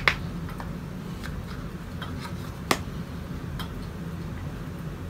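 A few faint ticks and one sharp click just past the middle, from makeup and a brush being handled, over a low steady room hum.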